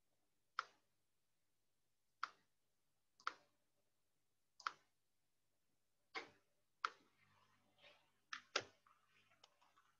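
Computer mouse clicking: about eight sharp single clicks at irregular intervals, a pair close together near the end, with faint rustling of handling between the later clicks.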